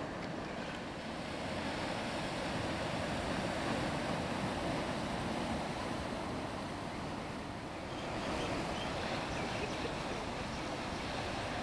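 Ocean surf washing on the beach, a steady rush of waves that dips briefly about eight seconds in.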